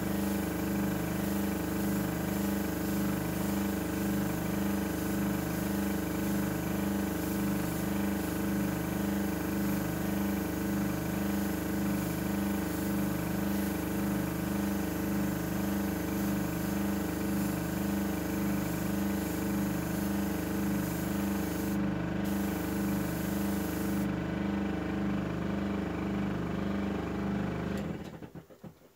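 Small electric airbrush compressor running steadily, a motor hum with a slow regular pulse, with air hissing from the airbrush as the paint is sprayed. The hiss drops away about three-quarters of the way through, and the whole sound cuts off suddenly just before the end.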